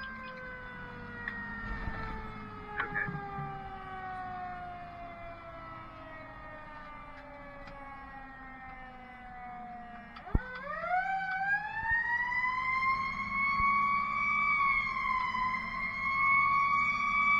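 Fire truck siren heard from inside the cab. It winds slowly down in pitch for about ten seconds, then is spun back up quickly after a short click and held at a high steady pitch.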